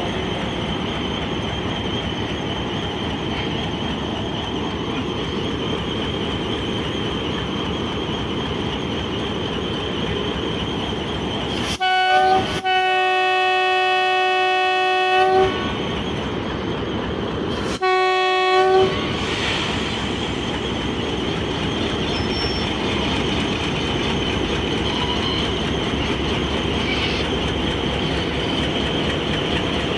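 Diesel-electric locomotive HBU 20 running at close range, engine and wheels giving a steady rumble. Its air horn sounds twice: a brief toot going straight into a long blast of about three seconds, about twelve seconds in, then a shorter blast about eighteen seconds in.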